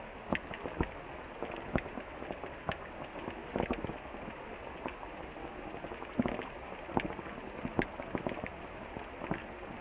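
Steady rain falling, a hiss with irregular sharp taps of single drops landing.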